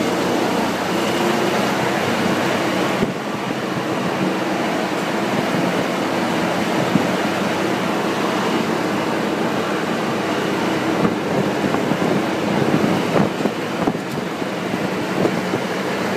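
Golf cart running along a paved street: a steady rumble of drive and tyres, with a few small knocks.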